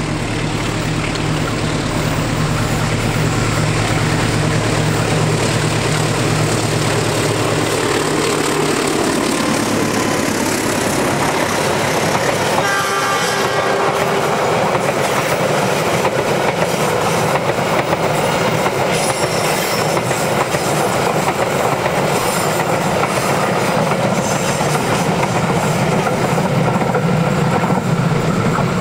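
Diesel locomotive engine running with a steady low hum as the passenger train approaches, then the rumble and clatter of the coaches' wheels on the rails as they pass close by. A brief horn blast sounds about halfway through.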